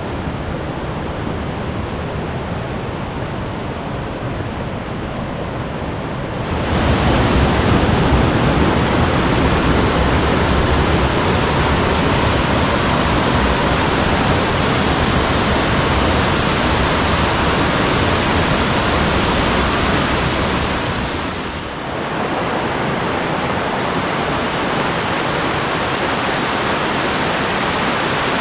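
Mountain stream rushing over rocks, a steady noise of running water. It turns louder and fuller about six seconds in and drops back somewhat about twenty-two seconds in.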